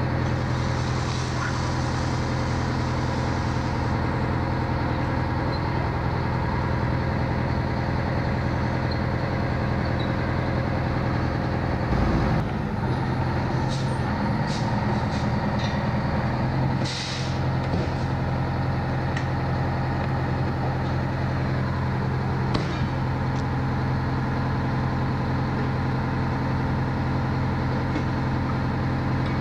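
Fire engine's engine running steadily at idle, with a few metallic clicks and knocks and a short hiss about 17 seconds in.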